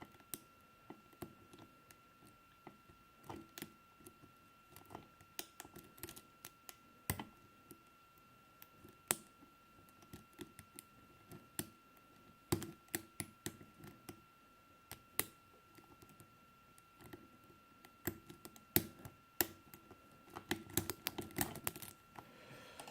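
Irregular small metallic clicks and scrapes of a tool working in the keyway of a rekeyable lock cylinder as it is picked or forced open, coming faster and denser near the end. A faint steady whine sits underneath.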